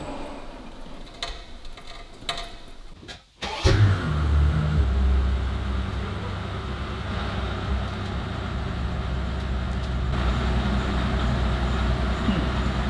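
Mercedes S600's twin-turbo V12 starting about three and a half seconds in and settling into a steady, low idle, after a few light clicks.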